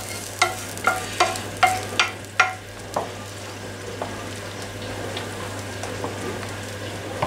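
A spatula knocking and scraping against a frying pan, about two or three strikes a second, as the fried contents are scraped into a pot of soup; after about two and a half seconds the knocks stop, leaving the steady hiss and bubbling of the soup boiling as it is stirred.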